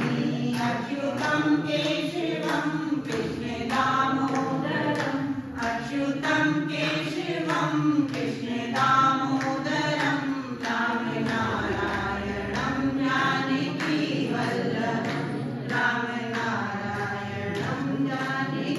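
A group of women singing a campfire song together without instruments, with hands clapping in time to it.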